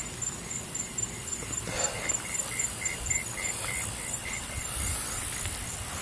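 Night insects chirping in an even pulsing rhythm, about three or four chirps a second, with two pitches of chirp at once. Low rustles and footsteps from the person walking with the camera underneath.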